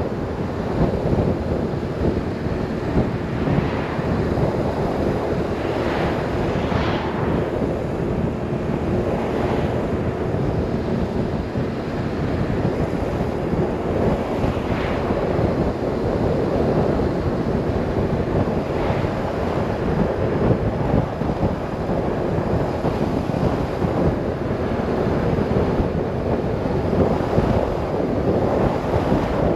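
Wind rushing over the microphone on a moving BMW R 1150 RS motorcycle, with the bike's boxer-twin engine running steadily underneath. A few brief gusts swell the noise.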